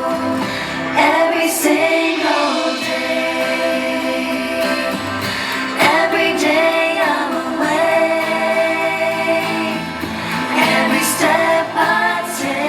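Two women singing a song together over instrumental accompaniment, in phrases with long held notes.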